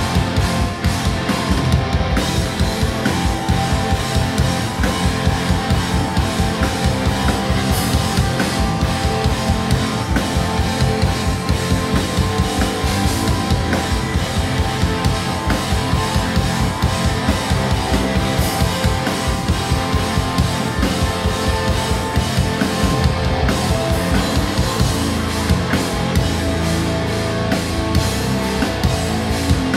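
Live instrumental metal band playing: heavily distorted electric guitars over a drum kit with rapid bass-drum hits. Near the end the fast kick pattern gives way to held low chords.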